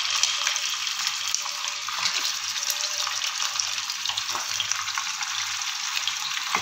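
Raw chicken pieces sizzling in hot oil with whole spices in a kadhai, a steady loud sizzle that began as the first pieces hit the oil, with more pieces added.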